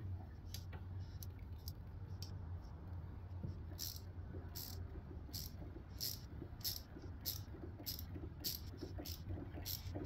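Double-ended quarter-inch and 3/8-inch hand ratchet clicking in short back-and-forth strokes as a bolt is turned, faint at first, then about one and a half strokes a second. A steady low hum runs underneath.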